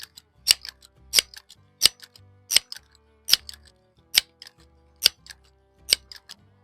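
Crosman 1322 multi-pump air rifle's pump lever being worked about nine times, a sharp click on each stroke, the strokes slowing slightly as the air charge builds.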